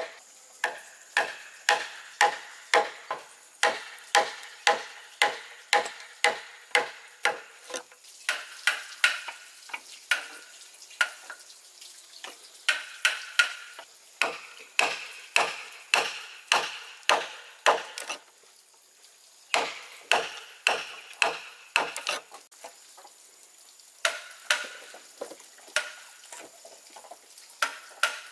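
A hand tool striking wood over and over, about two to three blows a second, each with a short ring. The blows come in runs with a couple of brief pauses.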